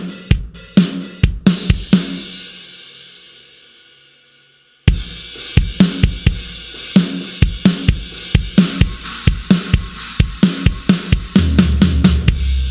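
Sampled drum kit from the Blasting Room Signature Series Drums Kontakt library playing a groove of kick, snare, hi-hat and cymbals. About a second and a half in the beat stops and a cymbal rings out for about three seconds. Then a new groove starts, getting busier, with a low sustained note coming in near the end.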